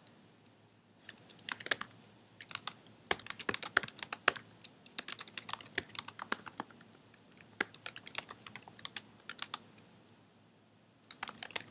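Typing on a computer keyboard: irregular runs of key clicks as a sentence is typed, pausing briefly near the end before a few more keystrokes.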